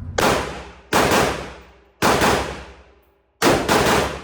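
Gunfire in an indoor range: three single shots about a second apart, then a quick string of shots near the end, each trailing off in a long echo.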